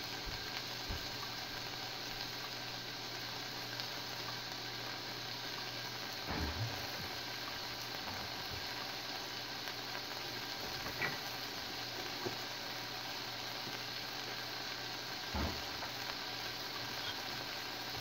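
Chopped onions and bell peppers sizzling steadily in oil in a saucepan as they sauté, with a few faint knocks.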